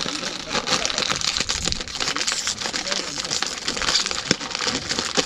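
Plastic snack packet crinkling and crackling as it is handled, an irregular run of fine crackles throughout.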